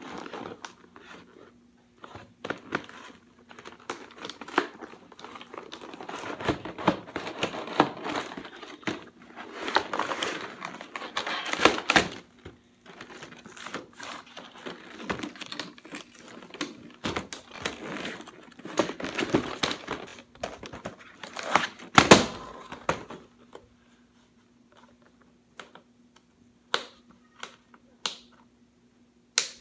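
Toy blaster's cardboard and plastic packaging being handled and torn open: continuous crinkling, tearing and knocking, busiest for most of the stretch, then only a few scattered clicks near the end, over a faint steady hum.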